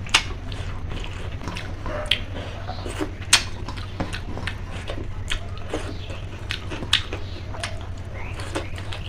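A person eating: chewing and mouth sounds with irregular sharp clicks and smacks, a few seconds apart. A steady low hum runs underneath.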